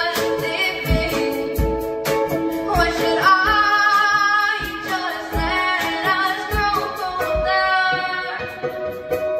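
A woman singing a melody with acoustic guitar accompaniment, with low thumps marking the beat.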